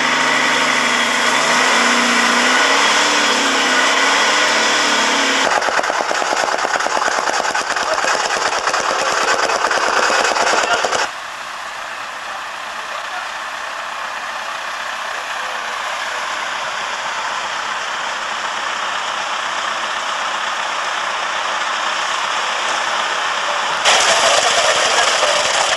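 Dump truck's diesel engine running, its pitch rising about two seconds in, then a fast, even clatter. It cuts off suddenly to a quieter steady hiss, and near the end a concrete mixer truck starts up loudly as it pours concrete.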